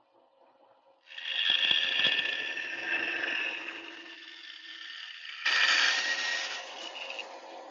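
Bandsaw blade cutting through a wooden board. The cutting starts about a second in, eases off, then comes back loud for a moment just before six seconds and tapers away, over a steady hum.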